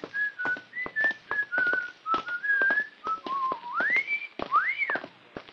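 A person whistling a tune, one clear note at a time, with two quick upward swoops in the second half.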